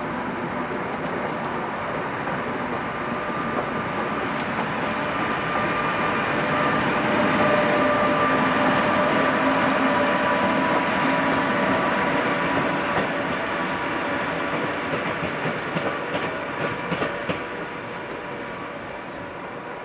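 British Rail electric InterCity train, a Class 87 locomotive with Mark 3 coaches, running through the station with a steady drone, growing louder towards the middle and easing off. A run of wheel clicks over rail joints comes near the end.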